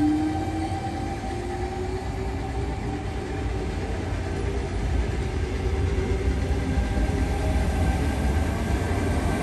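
Sydney Trains double-deck electric train moving off along the platform: the traction motors whine, rising in pitch, over a steady rumble of wheels on rail.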